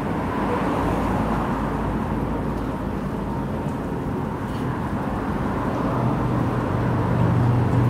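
Inland container barge's engine running as the barge moves slowly forward, with steady outdoor rumble. From about six seconds in, a steady low engine hum grows louder.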